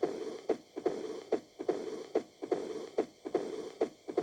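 Recorded heart sounds of mitral stenosis: sharp heart sounds in a steady rhythm, about five beats in four seconds, with a murmur filling the gaps between the beats. The murmur is the mid-diastolic murmur of a narrowed mitral valve.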